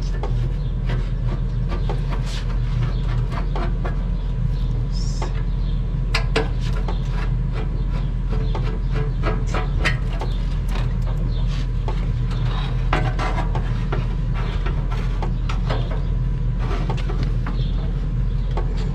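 A hand screwdriver working screws out of the sheet-metal casing of an air-conditioner outdoor unit: scattered small clicks and metal taps over a steady low machine hum.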